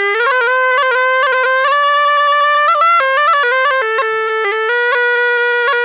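Zurna, a wooden double-reed shawm related to the dolçaina, played solo: a loud, bright, reedy melody of held notes with quick ornamental flicks between them.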